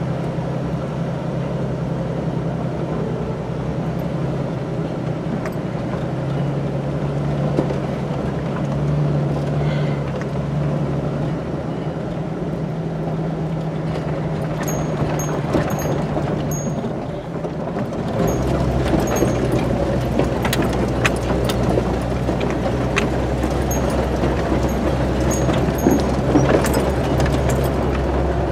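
A Jeep's engine runs steadily as it crawls over a rough desert dirt trail, heard from inside the cab. About 18 seconds in the drone turns deeper and a little louder, with scattered clicks and rattles from the rough track.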